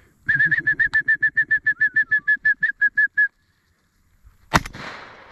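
A single shotgun shot about four and a half seconds in, fired at an incoming dove. Before it comes a rapid, even run of about twenty high, clipped chirps lasting some three seconds, which then stops.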